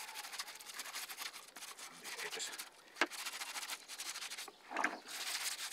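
Soft plastic scrub brush scrubbing a grooved wooden bee-nest tray wet with soapy water, a rapid run of scratchy back-and-forth strokes with a short pause about halfway through.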